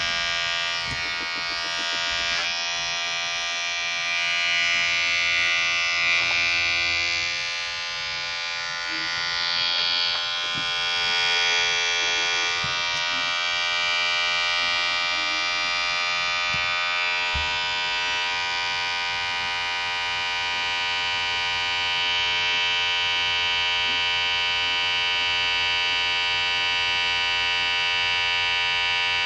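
Vibrating electric hair clipper running continuously with a steady buzz whose loudness wavers gently.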